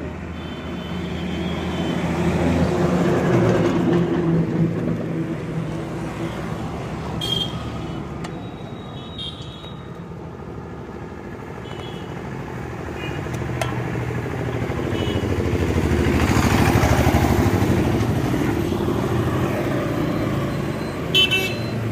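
Street traffic going by: motor vehicle engines, motorcycles and cars, swelling louder twice as they pass, with a few brief high clicks over it.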